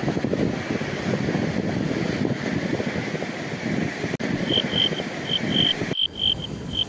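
Wind buffeting the microphone over the sea, a loud rough rumble that cuts off suddenly about six seconds in. From about four and a half seconds in, a high chirp repeats in quick pairs, about two pairs a second.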